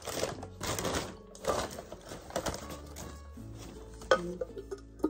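Paper packing rustling and crinkling as it is pulled off a small pot, then a couple of light knocks from the pot and its lid about four and five seconds in. Soft background music comes in during the second half.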